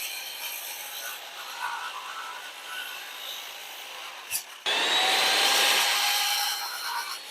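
Power tool working on wooden framing lumber, its motor whining up in pitch; a sharp click about four seconds in, then a louder stretch of about two seconds.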